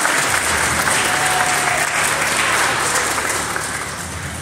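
Audience applauding, the clapping fading toward the end.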